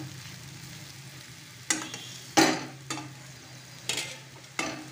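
A steel spatula stirs and scrapes spiced potato pieces around a frying pan, with a faint sizzle of oil. About five sharp scrapes come in the second half, over a steady low hum.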